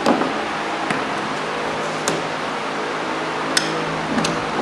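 Steady background hiss with about five light clicks and taps from handling a can of PVC cement and plastic pipe fittings; the loudest knock comes right at the start.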